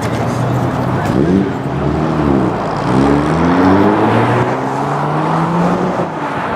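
Nissan Z sports car's engine revving: its pitch rises about a second in and drops back, then climbs steadily for about three seconds before easing off near the end.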